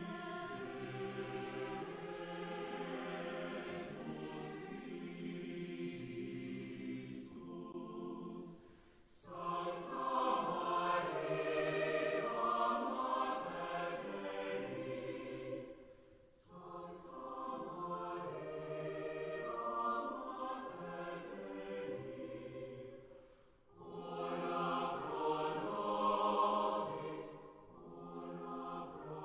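Background choral music: a choir singing slow, held phrases, breaking off briefly about every seven or eight seconds.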